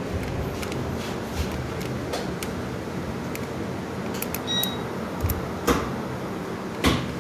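Steady room hum with a few light knocks on the counter, the clearest near the end, and a short high beep about four and a half seconds in.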